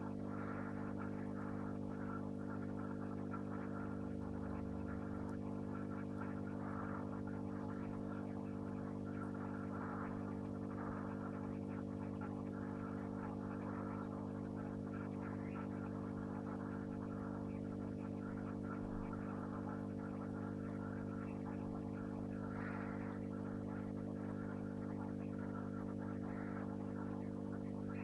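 Steady electrical hum of aquarium equipment, made of several fixed low tones, with a faint uneven hiss above it.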